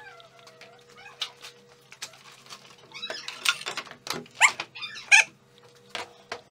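A cat meowing several times, with the loudest calls about four and five seconds in, among light clicks and knocks over a faint steady hum.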